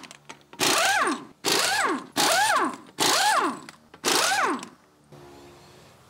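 Pneumatic impact wrench spinning off a wheel's lug nuts: five short bursts about a second apart, each rising and then falling in pitch as the wrench spins up and runs down.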